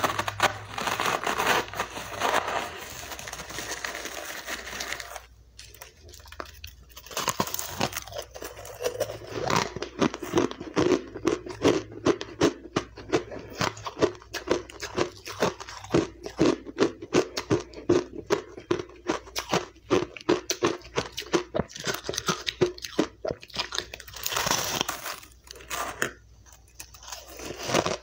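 A metal spoon scrapes and scoops through a tray of powdery, crushed refrozen ice. Then comes close-miked crunching and chewing of refrozen ice chunks, a steady run of sharp crunches about two a second, with one more brief burst of scraping near the end.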